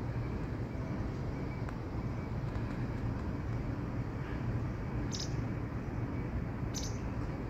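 Steady low rumble of railway station ambience, with two short high chirps about five and seven seconds in.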